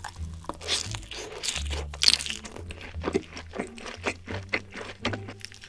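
Close-miked eating: crunchy food being bitten and chewed in a quick, irregular run of crisp crunches.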